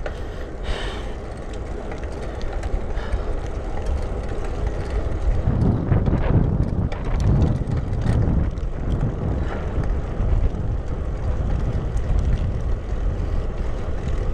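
Wind rushing over the microphone of a road bicycle in motion: a steady low rumble that swells for a few seconds in the middle.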